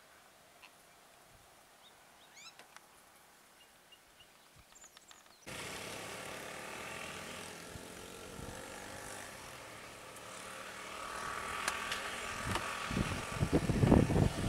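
Near silence with a few faint bird chirps. Then, from about five seconds in, the steady engine noise of passing motorbikes and an auto-rickshaw grows louder, and wind buffets the microphone in the last second or two.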